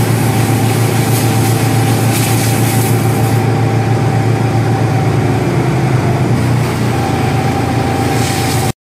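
Engine running steadily at constant speed, a loud low hum with a hiss over it, which cuts off abruptly near the end.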